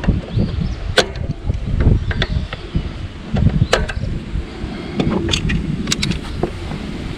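Irregular sharp clicks and knocks, a dozen or so, over an uneven low rumble.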